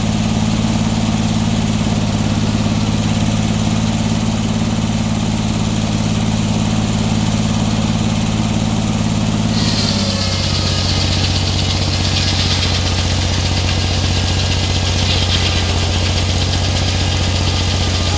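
A sawmill's engine running steadily. About halfway through, its pitch drops as it takes load, and a loud high hiss of the saw blade cutting through wood joins it.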